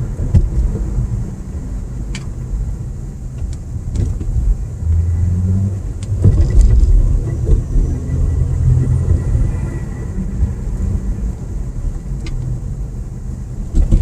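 Car driving, heard from inside the cabin: a steady low rumble of engine and road noise, with a few sharp knocks.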